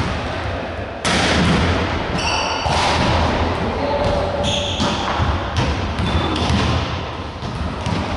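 Volleyball bouncing and thudding on a wooden gym floor, echoing in a large hall, with a couple of brief high squeaks.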